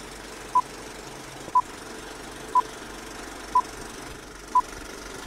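Film countdown-leader sound effect: five short, identical beeps, one each second, over a steady hiss.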